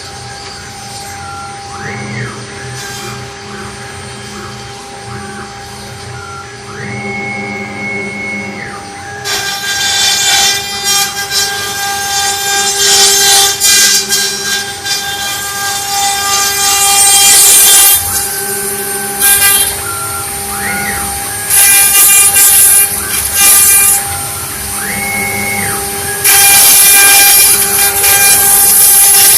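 CNC wood-carving router at work: the spindle runs with a steady whine while the axis motors repeatedly ramp up in pitch, hold and ramp down. From about a third of the way in, the cutter bites into the wood in loud stretches of rasping cutting noise that stop and start as the head moves.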